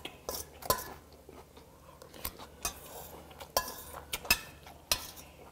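Metal spoon clinking and scraping against a stainless steel bowl, scooping up the last of the bibimbap, with about seven sharp clinks spread through.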